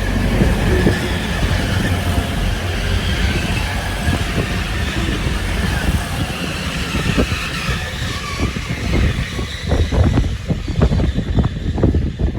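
Grand Central Class 180 diesel multiple unit running along the platform with a steady rumble, and irregular wind buffeting on the microphone from about two-thirds of the way in.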